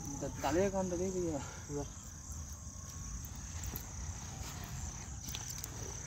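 Crickets chirping in a steady, high-pitched chorus, with a brief human voice calling out near the start.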